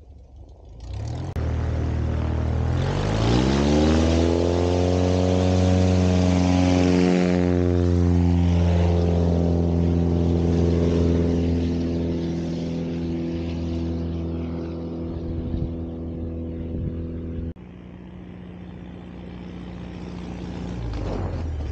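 CubCrafters XCub bush plane's engine and propeller, throttled up from idle: the pitch climbs steeply a few seconds in, then holds a steady drone at full power. Later the sound drops suddenly to a lower, quieter drone at reduced power, growing louder again near the end as the plane comes in to land.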